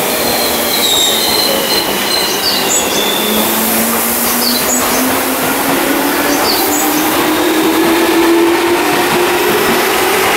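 Tobu limited express Ryōmō train running slowly along the platform. Short, high wheel squeals sound over the running noise, and a motor whine climbs steadily in pitch through the middle.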